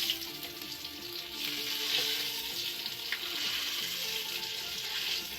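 Pieces of Arabic flatbread frying in hot oil in a pan, a steady sizzle that grows louder about a second and a half in, with a few small clicks.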